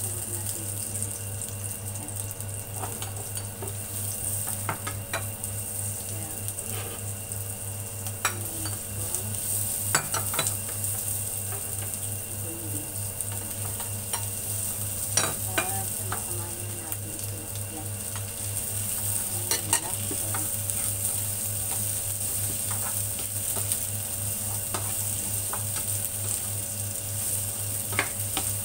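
Food sizzling in hot oil in a nonstick frying pan as a plastic spatula stirs and scrapes it: first garlic, shallots and ginger, then a load of mixed vegetables tipped in from a bowl about halfway through. A few sharp clacks of the spatula and bowl against the pan stand out over the steady sizzle and a low hum.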